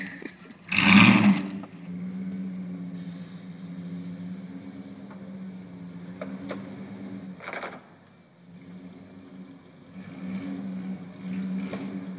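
Jeep Grand Cherokee's 5.2-litre V8 running at low revs as it crawls through snow, a steady low hum that swells a little near the end. A loud short burst of noise about a second in.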